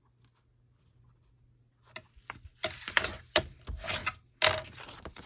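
Sheets of paper being handled and shifted on a work surface: rustling with several sharp knocks and taps, starting about two seconds in, the loudest two near the end.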